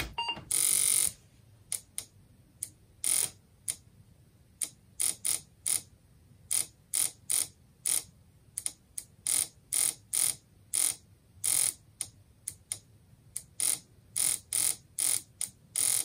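Relay in a Noisy Disk Sounder clicking and chattering in short, irregular bursts, about one or two a second, each time the emulated floppy drive changes tracks while an Apple IIe boots, imitating the clatter of a Disk II drive's head stepping. A longer rattling burst lasting just under a second comes near the start.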